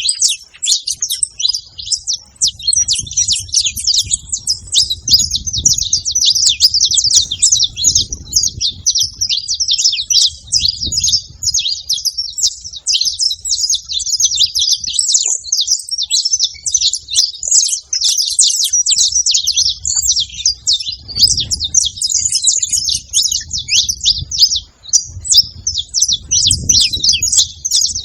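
Saffron finch singing: a long, unbroken run of rapid, high chirps and trills.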